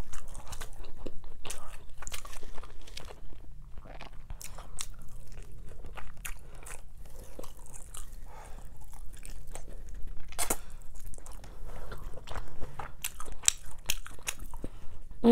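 Close-miked chewing and biting while eating ribs off the bone by hand, with many short sharp mouth clicks and smacks; one louder click comes about ten seconds in.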